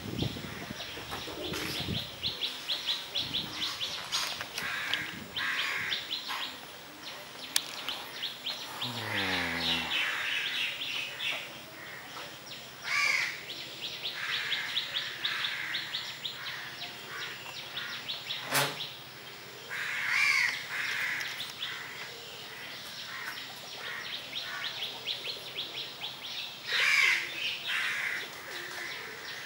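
Garden birds chirping and trilling, with crows cawing loudly three times, spaced several seconds apart. A faint low hum slides down in pitch about nine seconds in and then holds steady.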